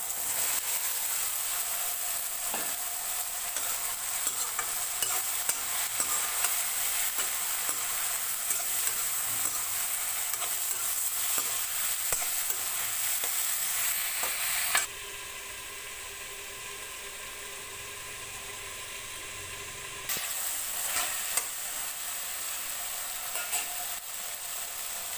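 Spices and vegetables frying in mustard oil in a pan, with a steady sizzle and small scraping clicks from a spoon stirring them. About fifteen seconds in the sizzle drops out for about five seconds, leaving a quieter steady background, then it returns.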